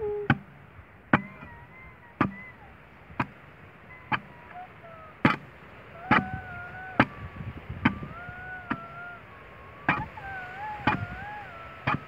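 A long digging bar jabbed down into hard, stony dry soil at the bottom of a narrow hole, giving a sharp strike roughly once a second. A wavering, pitched sound comes and goes between the strikes.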